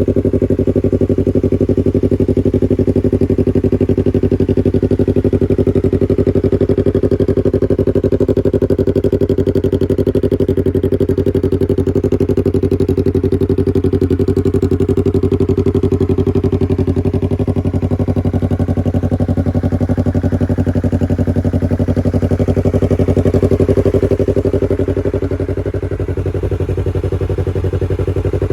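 Yamaha R3's parallel-twin engine idling steadily and loudly, going a little quieter briefly near the end.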